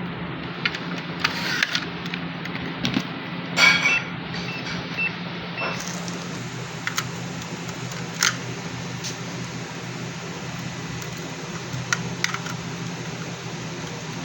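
Steady low electrical hum with scattered clicks and taps. A few short high beeps come about four to six seconds in.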